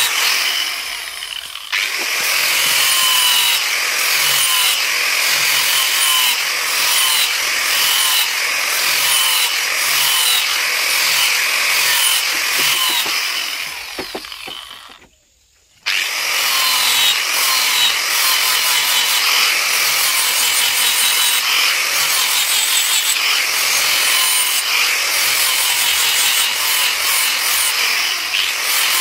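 Electric angle grinder with a grinding disc grinding a steel machete blade, worked along the blade in repeated strokes about one and a half a second. The grinding dips briefly about a second in and cuts out for about a second midway, then starts again.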